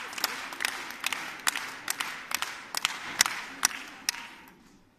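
Concert audience clapping in a steady rhythm, about two claps a second, over crowd noise. The clapping dies away near the end.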